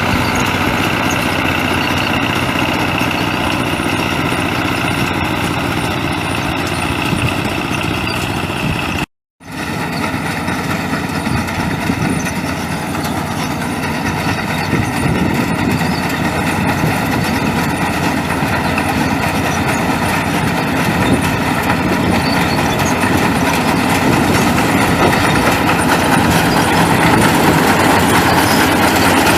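A power-tiller-driven mini combine harvester's engine running steadily under work, with machinery clatter over it. The sound cuts out for a moment about nine seconds in, then resumes and grows slightly louder near the end.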